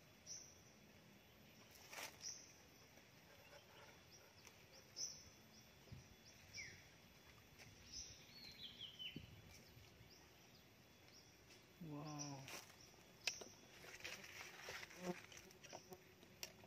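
Near silence outdoors, with faint short high chirps of small birds scattered through it and a few sharp clicks from the wooden stingless-bee hive box being handled as its top is lifted off. There is a brief low hum-like vocal sound about twelve seconds in.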